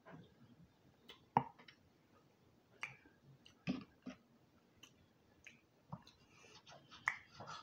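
Close-miked chewing of a mouthful of boiled potato, with sporadic wet mouth smacks and clicks; the sharpest click comes about a second and a half in.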